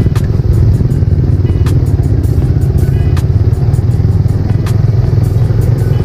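Motorcycle engine running steadily as the bike is ridden, with a few sharp knocks or rattles over it.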